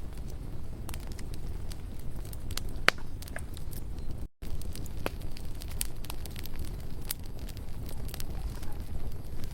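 Wood campfire burning: sharp crackles and pops of the burning wood over a low steady rumble of the flames, with one louder pop about three seconds in. The sound drops out for a split second just after four seconds in.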